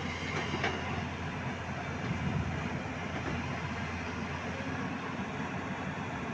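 Hyundai 210-7 hydraulic excavator's diesel engine running steadily under load, with two sharp knocks under a second in.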